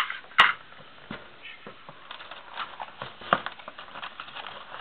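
Small objects and packaging being handled: a sharp click about half a second in, then scattered light clicks, taps and rustling.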